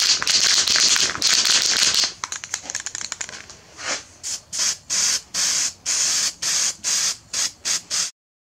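Aerosol spray-paint can spraying. A long steady hiss for about two seconds, then a quick run of short spurts, about three a second, before the sound cuts off abruptly near the end.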